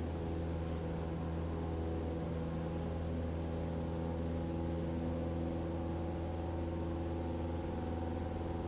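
Cessna 172 Skyhawk's single piston engine idling steadily while holding short for takeoff, a low, even drone with a faint steady high whine over it.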